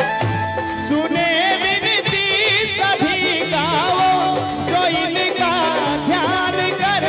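Live Hindi devotional bhajan. A male singer's wavering, ornamented melody comes in about a second in over harmonium, dholak and keyboard accompaniment.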